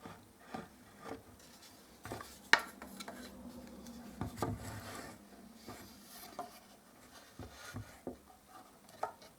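Scattered knocks, clicks and rubbing of a wooden brush handle and tools being handled, with one sharp click about two and a half seconds in.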